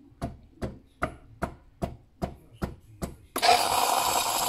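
Philips automatic espresso machine building up steam: eight regular clicks, about two and a half a second, then about three seconds in a loud steady hiss of steam bursts out through the milk frother, purging it of milk residue.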